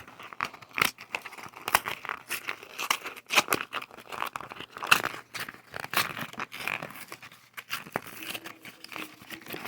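Cardboard packaging being torn and pulled apart by hand, in a run of irregular rips, rustles and crinkles.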